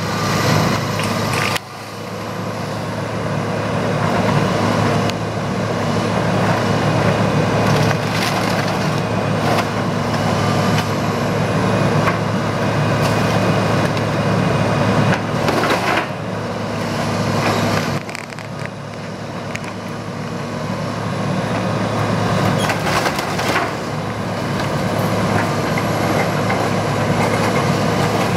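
John Deere 230LC excavator's diesel engine running steadily under load as its bucket crushes a small wooden shed, wood creaking and splintering, with a handful of sharp cracks as boards break.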